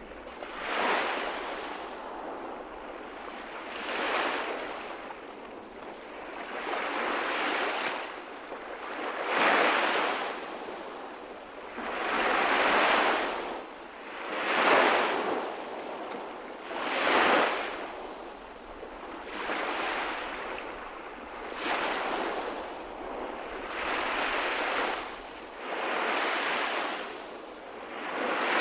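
Small waves breaking and washing up on a sandy shore, the surf swelling and fading about every two to three seconds.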